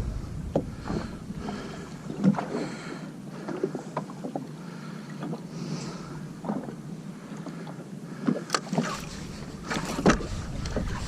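Water lapping against a drifting jet ski's hull, with scattered small knocks and clicks and a low wind rumble on the microphone that drops away after about a second and returns near the end.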